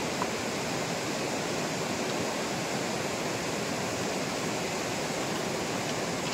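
A fast river rushing over its stony bed: a steady, even rush of flowing water.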